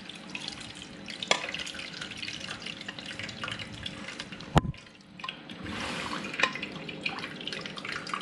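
Fish broth pouring from a pot through a wire-mesh strainer into a steel bowl: a steady splashing trickle with small clinks, and a single sharp click about halfway through.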